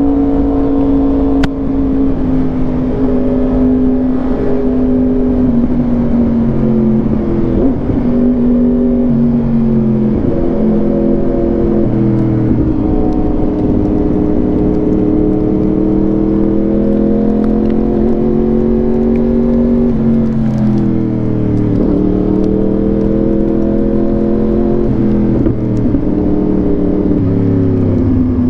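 Yamaha R1 inline-four engine through an SC-Project exhaust, running under way. Its note rises and falls with the throttle and drops sharply a few times as throttle is rolled off or gears change.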